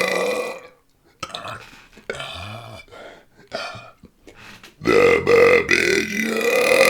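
A man's deliberate, long, loud burps, forced up from air he has swallowed into his stomach. One burp tails off in the first second, a few quieter broken sounds follow, and a second long burp starts about five seconds in, wavering in pitch as he shapes it.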